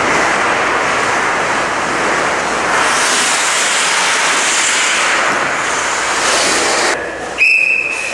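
Ice hockey skates scraping and carving the rink ice, heard as a steady hiss. About seven seconds in it drops away, and a short, steady, high-pitched whistle blast follows.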